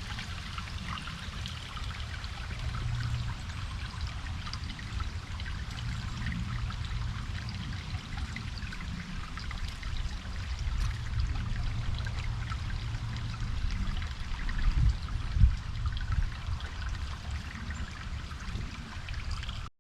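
Small stream trickling and babbling steadily, under a low rumble. A few louder low thumps come near the end, the strongest about fifteen seconds in.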